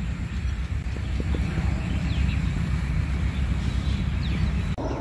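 Low, steady outdoor rumble with a few faint, short bird chirps: once about two seconds in, and again near the end.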